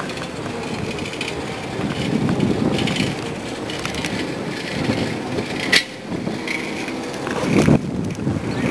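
Bicycles on the move along a city street, heard from a rider's handheld camera: a rough, uneven rumble of tyres, road and handling, with one sharp click about six seconds in.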